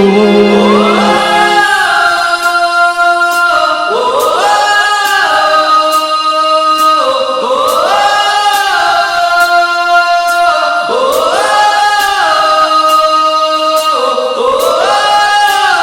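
Music: a song intro of layered, choir-like vocal swells that glide up in pitch and repeat about every three and a half seconds over a light ticking beat.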